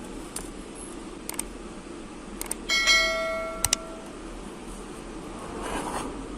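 A piece of metal struck once and ringing with several clear tones that fade over about a second, with a few light metallic clicks before and after.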